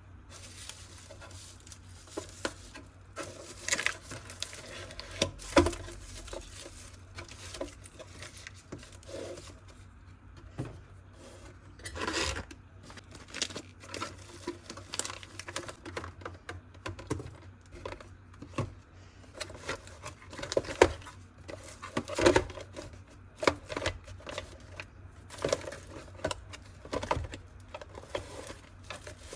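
Irregular small clicks, knocks and crinkles of things being handled, with a few louder knocks, over a faint low hum.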